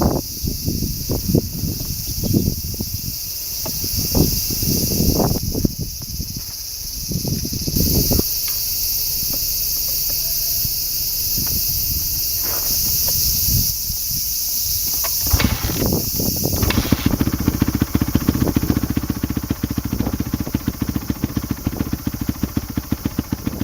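Irregular knocks and handling noises, then about two-thirds of the way in the Honda CRF250R's single-cylinder four-stroke engine starts and runs with a fast, even beat through its newly fitted muffler. Insects buzz high and steadily throughout.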